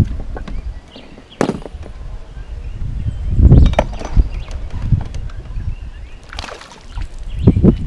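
Water splashing and sloshing beside a small boat as a small peacock bass is brought up out of the lake and let back into it, with a sharp knock about one and a half seconds in.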